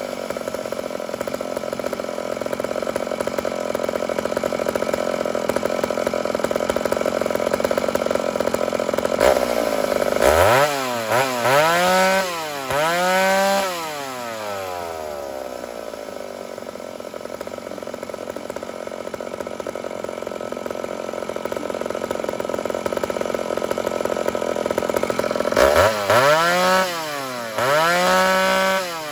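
Ported Homelite two-stroke chainsaw held at full throttle in a steady cut through wood, then revved up and down a few times out of the cut about ten seconds in, before a second long cut and another couple of revs near the end.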